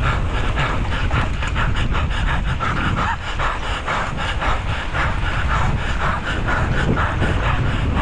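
A mountain bike rider panting hard in quick short breaths while racing, over a steady rumble of wind on the helmet camera's microphone and tyres rolling on a dirt track.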